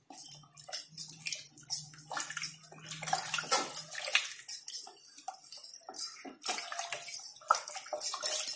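Thin curry in an aluminium pressure cooker being stirred with freshly added water: irregular sloshing and splashing, with short knocks of the spoon against the pot.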